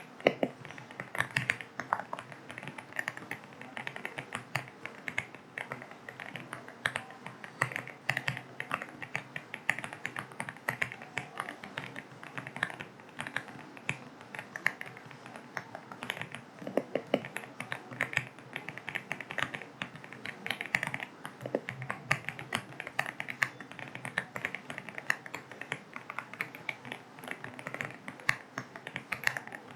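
Typing on an AULA F75 mechanical keyboard with linear switches: a steady, irregular run of key clacks, several a second, over a soft, steady bed of rain.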